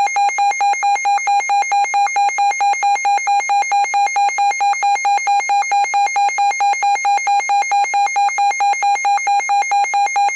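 Emergency alert attention tone: a loud, high electronic beep pulsing evenly about four times a second, the signal that an emergency broadcast message is about to follow.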